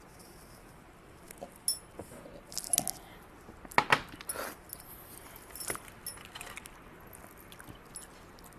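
Faint scattered clicks and clinks of handling at a table: a plastic drinks bottle set down, a sandwich lifted off a plate, and heavy metal neck chains and rings knocking together. The loudest click comes about four seconds in.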